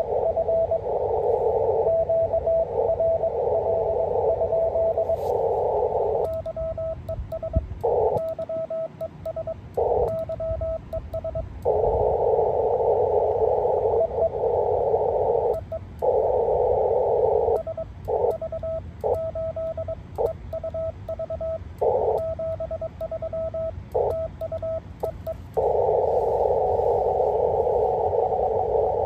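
Amateur radio transceiver in CW mode: band hiss heard through a narrow filter, with a Morse code signal keyed in it. Twice, for several seconds, the hiss mostly drops away while Morse code is keyed as a clean steady tone, with short bursts of hiss between characters.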